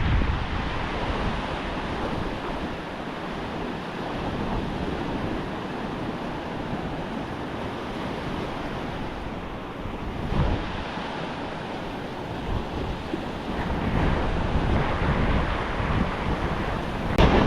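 Surf washing onto a beach, with wind buffeting the microphone in gusts.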